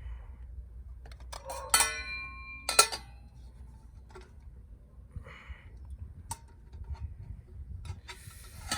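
Metal cookware clinking and knocking a few times, one knock ringing on with a clear metallic tone, over a low rumble of wind on the microphone.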